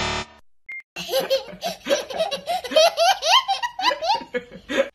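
A baby laughing hard in rapid, repeated bursts, starting about a second in, used as a mocking meme sound effect for a wrong answer. Just before it, a buzzing tone cuts off right at the start and a short beep sounds.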